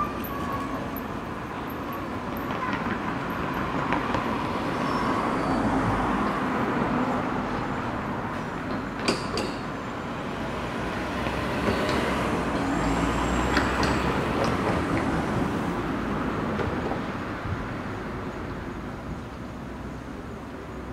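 Road traffic noise on a city street, a steady hum that swells twice as vehicles pass, with a sharp click about nine seconds in.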